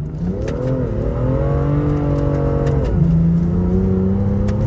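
BMW turbocharged straight-six engine revving under hard throttle, heard from inside the cabin: the pitch climbs over the first second, holds high, drops about three seconds in, then climbs gently again.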